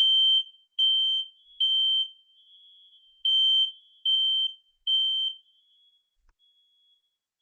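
Residential smoke detector sounding its test alarm: two rounds of three loud, high-pitched beeps in the temporal-three evacuation pattern. The test button has been pressed, and the beeps show the unit is working.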